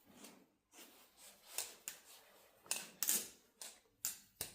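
Steel balisong (XDYY Kraken V3) being flipped, its handles and pins clicking and clacking at irregular intervals, about eight times. It is being tried out with weights newly added to the handle to change its balance.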